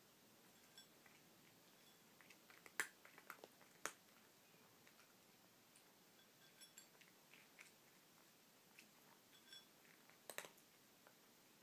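Cat eating kibble from a shallow dish: faint, scattered crunches and clicks of chewing, with a few louder clicks a few seconds in and again near the end.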